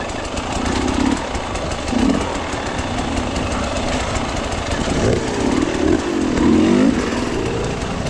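Off-road dirt bike engine running under load on a rocky trail, blipped up and down in quick revs from about five to seven seconds in.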